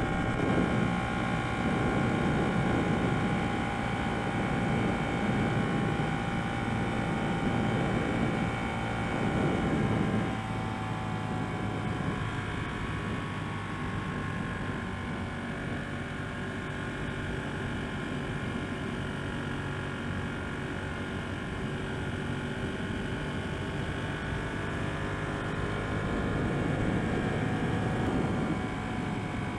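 Ducati 1199 Panigale S's 1198 cc Superquadro L-twin engine running while the bike is ridden down the road, its note holding fairly steady with small rises and falls in pitch. It eases off about ten seconds in and picks up again near the end. The engine is on a freshly flashed Tuneboy fuel map and trim.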